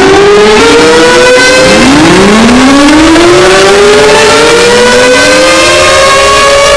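Several civil-defence warning sirens winding up one after another, each rising in pitch and levelling off into a loud, steady wail: an emergency alert alarm.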